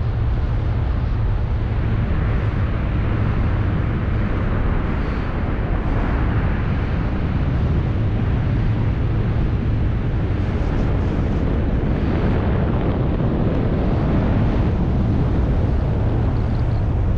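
Steady, loud rush of wind over the microphone from air streaming past a BASE jumper in flight.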